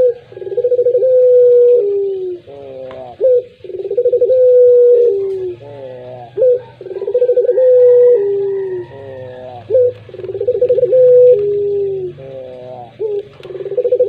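Caged puter pelung dove cooing over and over, about every three seconds. Each coo opens with a quick stuttering run and then holds a long note that steps down in pitch.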